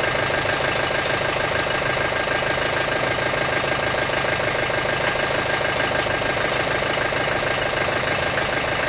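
John Deere 110 TLB backhoe loader's diesel engine idling steadily.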